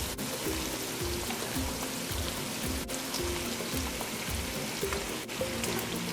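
Background music over the crackling sizzle of a pot of burnt-sugar stew sauce cooking on the stove, with fried snapper just added.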